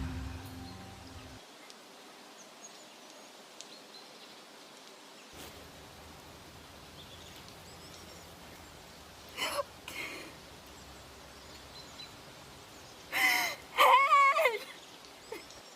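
Faint outdoor ambience, broken by a couple of short cries and then, near the end, a louder wavering cry from a person in distress.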